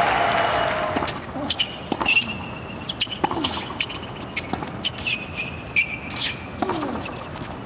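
Crowd applause dying away about a second in, then a tennis rally on a hard court: sharp racket-on-ball hits with the short squeaks of players' shoes between them.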